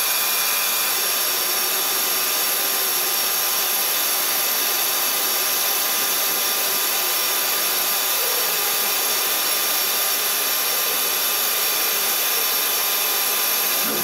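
Hwacheon F1300 friction stir welding machine welding AL 3003 aluminium plate, its spinning tool traversing the joint. A steady, even hiss with several high steady whines.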